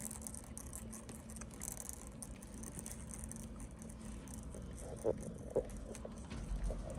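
Tiny kittens' paws pattering and scrabbling in light, irregular taps and scratches as they play, with two short squeaky sounds about five seconds in.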